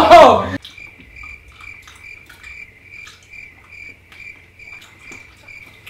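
Cricket chirping, about four even chirps a second, as a comedy 'crickets' sound effect laid over an awkward silence.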